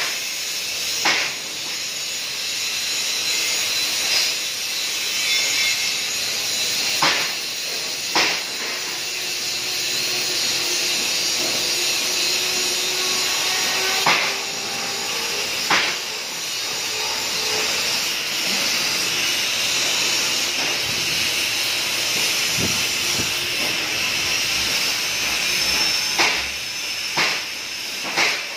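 KorWeld DC TIG 350A welding arc on 16 mm stainless steel plate, a steady hiss with a sharp crack every few seconds.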